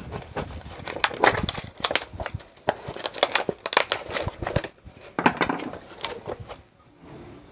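Screwdriver prying the old fibre-former voice coil out of a 15-inch speaker cone: irregular cracking, crinkling and scraping as the glued coil and paper give way, thinning out near the end.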